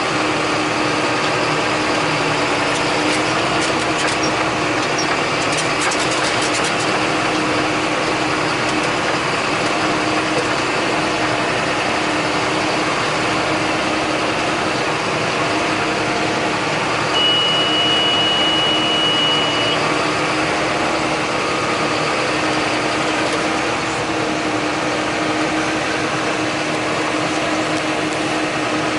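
John Deere 8100 tractor's six-cylinder diesel running steadily, heard from the ride-along position. Just past the middle, a steady high beep sounds for about two and a half seconds.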